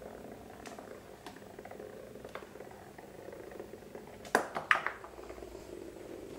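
Hexbug Nano vibrating toy bug buzzing steadily as it runs across a hardwood floor, with a few light clicks and then a quick cluster of loud sharp knocks about four seconds in.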